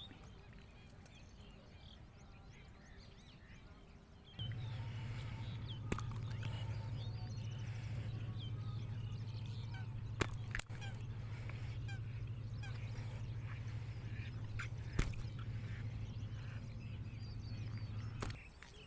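Faint bird chirps, then about four seconds in a steady low hum starts abruptly and runs until shortly before the end, with a few sharp clicks over it.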